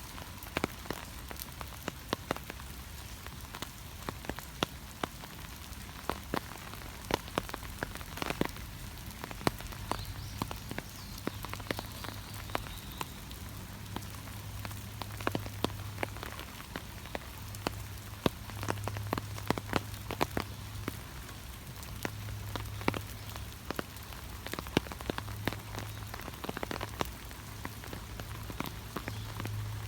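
Steady rain falling, with many sharp, irregular drop ticks over an even hiss. A low hum comes and goes from about ten seconds in.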